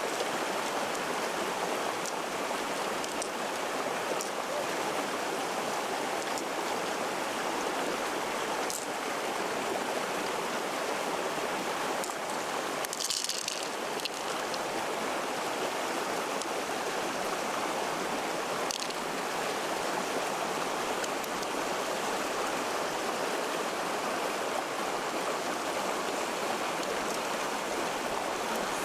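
Steady sound of running water, with a few faint clicks and a brief higher splash or hiss about thirteen seconds in.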